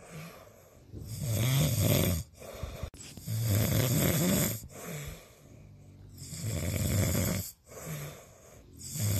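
A person snoring in slow, regular breaths: three loud snores about three seconds apart, with softer breaths between them.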